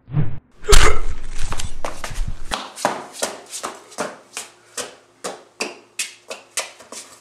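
A loud thud about a second in, then quick shoe footsteps on a concrete driveway as a person runs away, about three steps a second, fading steadily.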